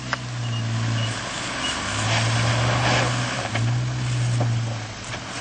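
A 4x4's engine pulling at low revs as the vehicle crawls over rocks, the throttle easing off twice and coming back on. Faint clicks and scrapes sound over it.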